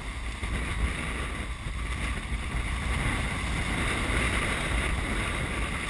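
Wind buffeting the microphone and water rushing along the hull of a Mini 6.50 racing yacht sailing fast under sail, with spray coming off the bow. It is a steady rush of noise with gusty low rumble.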